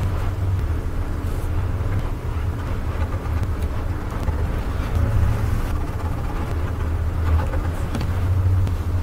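A steady low rumble with a faint hiss above it, even throughout.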